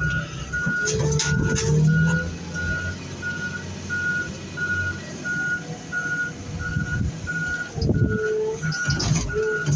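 Heavy equipment's backup alarm beeping steadily, about two beeps a second, over the machine's engine running, with a few knocks near the start and again near the end.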